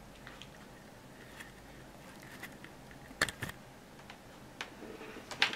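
Quiet room with a German shepherd puppy panting faintly, broken by a few sharp clicks: two close together a little past the middle and another near the end.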